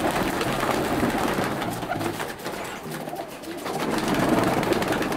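A loft of white Makus pigeons cooing in low repeated notes, with a flurry of wings as the birds are disturbed and flap about, louder near the start and again about four seconds in.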